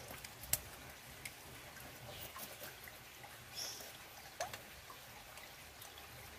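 Faint scraping and clicking of a knife scaling small freshwater fish against a wet concrete floor, with a few sharper taps, the clearest about half a second in.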